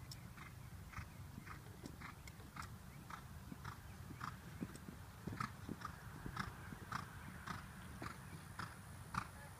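Hoofbeats of a horse cantering on sand arena footing, about two beats a second, growing louder in the second half as the horse comes closer.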